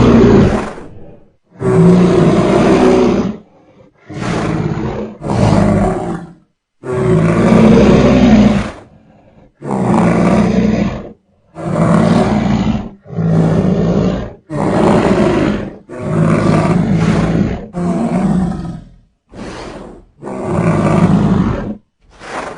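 Creature sound effect of a monstrous reptile-like beast, the made-up crocodile–human hybrid 'Crocoduman': deep animal roars, about a dozen, each one to two seconds long, separated by short pauses.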